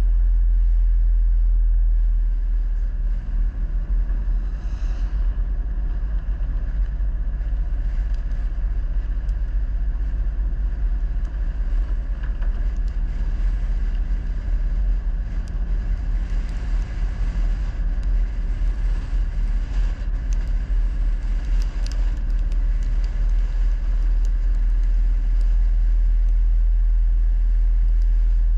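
Low, steady rumble of a vehicle on the move, turning uneven and fluttering from about two seconds in until near the end.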